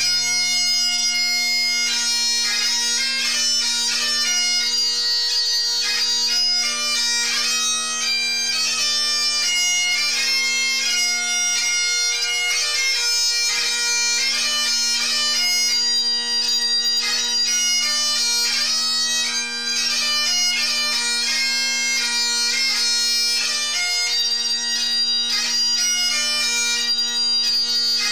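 Scottish bagpipes playing a tune: a fast chanter melody over the steady hum of the drones.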